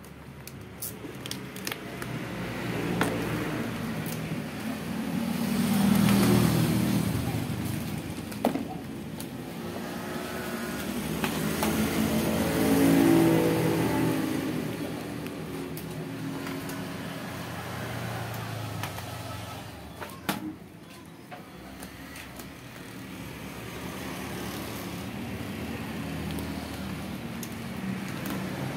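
Motor vehicles passing on a road, their engines swelling up and fading away twice, a quarter of the way in and again near the middle, over a steady background rumble, with a few sharp clicks.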